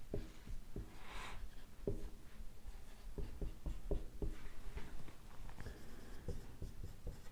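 Marker pen writing on a whiteboard: short, irregular rubbing strokes and light taps as words are written out.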